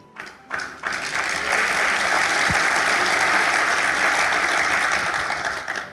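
A congregation applauding: a couple of early claps, then steady applause that dies away near the end.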